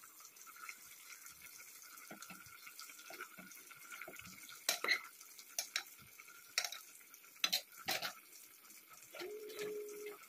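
A metal spoon stirring chopped cabbage in an aluminium pot, with several sharp clinks of the spoon against the pot in the middle.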